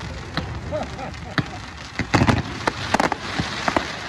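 Fireworks display: an irregular run of sharp bangs and crackles from bursting shells and ground fountains over a continuous crackling hiss, with the loudest cluster of bangs about two seconds in and another about three seconds in.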